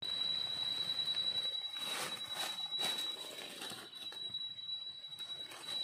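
Dry leaf litter rustling and crackling as a hand picks a wild mushroom from the forest floor and feels among the leaves and twigs, with a few louder crackles about two to three seconds in. A thin, steady high-pitched tone runs underneath.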